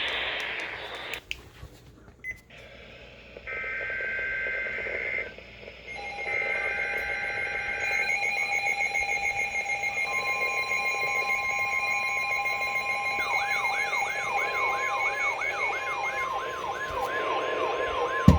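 Emergency alert tones from several devices sounding at once: short bursts of steady high electronic tones, then fast beeping over a steady tone, joined about halfway through by a rapidly repeating rising whoop, about two to three sweeps a second.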